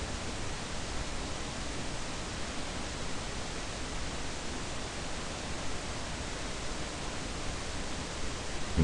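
Steady, even hiss of background noise in a voice recording, with no other sound.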